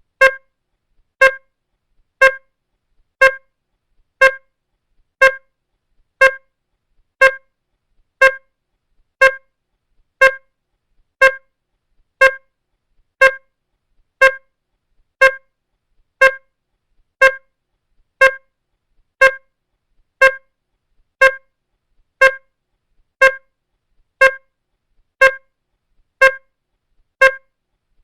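Electronic beeper sounding short beeps at a steady one per second, each beep a buzzy tone of several pitches together. The beeping stops shortly before the end.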